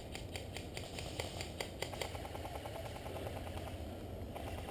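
Airsoft guns firing some way off: a quick, even run of sharp clicks, about six a second, strongest for the first two seconds, then fainter.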